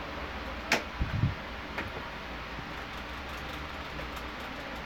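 Handling noises from unpacking a snake container: a sharp click under a second in, a soft low thump just after, and a fainter click, over a steady low hum.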